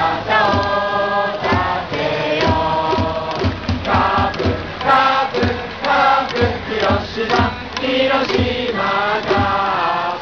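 Stadium crowd singing a cheering song in unison over a steady drum beat, as a baseball cheering section does in the seventh inning.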